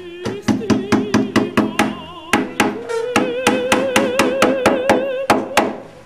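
A small hammer quickly tapping a nail in, about five strikes a second, stopping near the end. Under the strikes runs a long sung note with a wavering vibrato, stepping up in pitch about halfway through.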